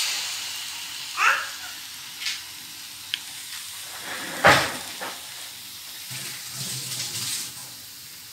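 Stir-fried vegetables and soya chunks sizzling steadily in a hot pan as an egg goes in. A few light clicks sound over it, with one louder knock about halfway through.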